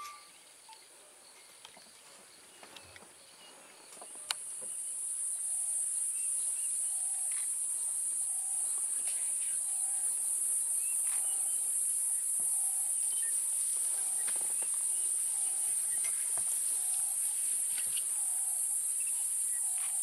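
Steady, high-pitched insect chorus that starts about four seconds in and holds level, with faint short notes repeating underneath.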